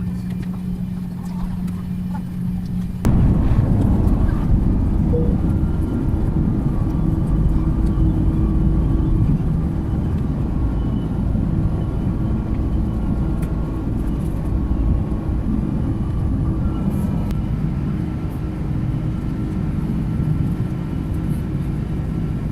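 Airbus A330-300 cabin noise: a steady hum, then about three seconds in an abrupt jump to a louder, steady low rumble with faint engine tones above it.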